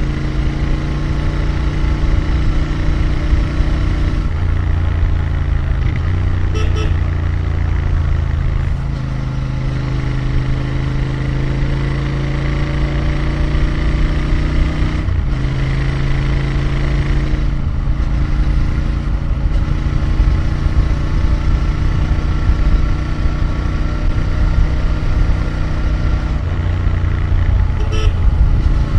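Royal Enfield Interceptor 650's parallel-twin engine and exhaust under way on the road, its pitch stepping up and down several times with throttle and gear changes. Two brief horn toots sound, about seven seconds in and near the end.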